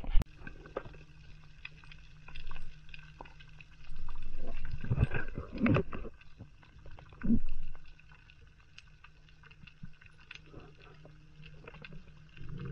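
Underwater ambience through an action camera: a steady low hum, scattered sharp clicks and crackles, and several muffled swells of water rushing past, loudest from about four to six seconds in and again briefly near seven seconds.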